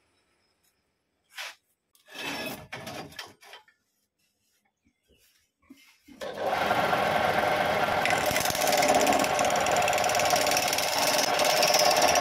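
A few brief knocks and handling noises at the stopped wood lathe. About six seconds in, the lathe starts running with a loud, steady hum. From about eight seconds, a turning chisel cutting into the spinning guava root adds a continuous scraping hiss.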